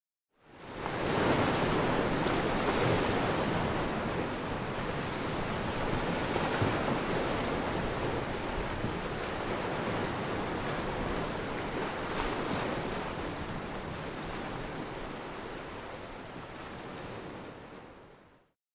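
Ocean waves and surf washing in a steady rush with slow swells, fading in at the start and fading out near the end.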